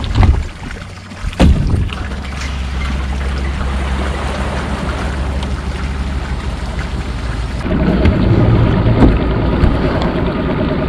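Two sharp thumps on a boat's deck, then an engine idling with a steady low hum that grows louder about eight seconds in.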